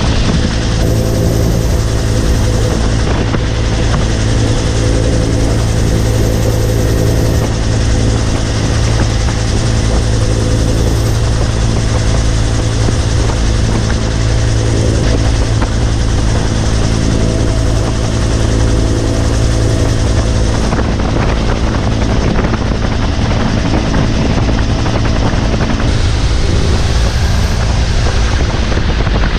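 Vietnam-era military helicopter heard from inside the cabin in flight: loud, steady rotor and engine noise with a strong low drone.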